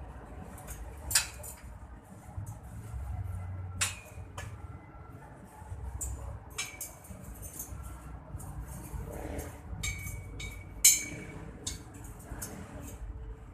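Scattered sharp clinks and knocks, the loudest about a second in and near eleven seconds, over a steady low rumble.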